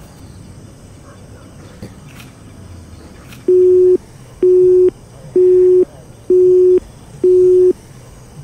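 Telephone busy tone heard through a mobile phone: five identical steady low beeps, each about half a second long and about a second apart, starting a few seconds in. It is the signal that the call has not gone through.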